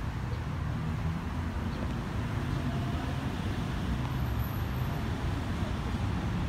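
Low, steady rumble from a diesel locomotive still far down the line, slowly growing louder as it approaches.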